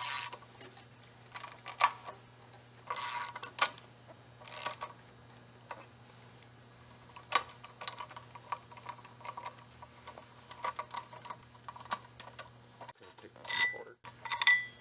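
Hand socket wrench ratcheting in short runs of quick clicks as bolts are run in to fasten the end plate onto the sweeper drum and compress the new brush wafers, with metal clinks of bolts being handled near the end.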